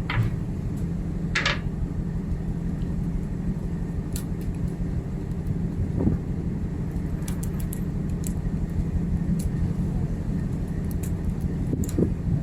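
Steady low drone of a ship's machinery, with a few brief clicks and knocks over it.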